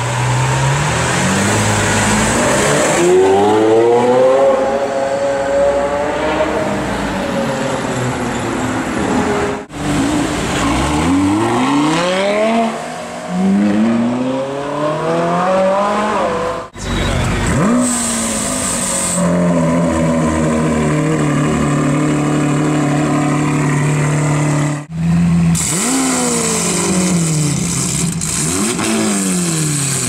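Supercar engines, among them a Lamborghini Aventador's V12 and a Ferrari 458 Italia's V8, revving and accelerating away in several short clips cut together: the engine note rises sharply again and again, drops at gear changes, and is held steady for a few seconds in the second half.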